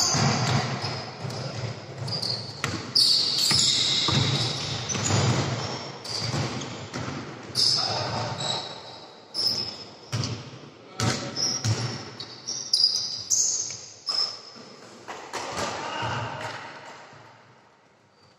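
Basketball bouncing on a gym floor amid players' shouts, echoing in a large indoor hall; the sounds fall away near the end.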